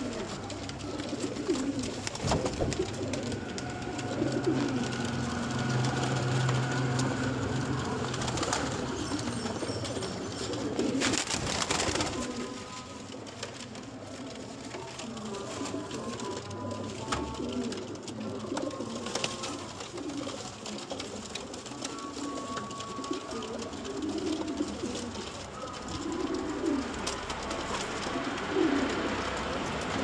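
A flock of domestic pigeons cooing, with repeated short low coos overlapping one another, more of them in the second half.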